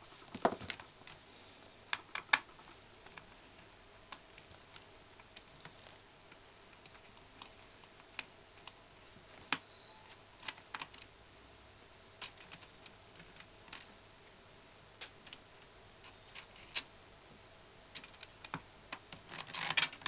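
Irregular small clicks and taps from a laptop being taken apart by hand: screws and small plastic and metal parts being worked loose and handled at the frame beside the keyboard.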